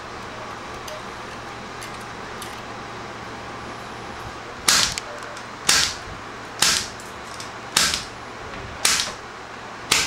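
Spring-loaded punch-down tool snapping as it seats cable wires into a patch panel's terminals: a sharp snap about once a second, starting about halfway through.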